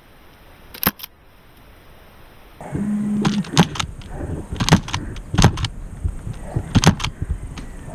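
A single sharp click, then from about two and a half seconds in a louder rustling with a run of sharp clicks and metallic rattles.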